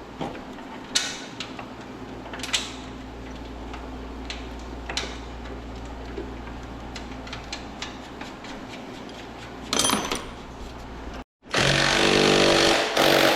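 Light metallic clicks of hand tools against metal, scattered over a steady low hum. Near the end, after a sudden cut, comes a loud, steady mechanical buzz lasting about a second and a half.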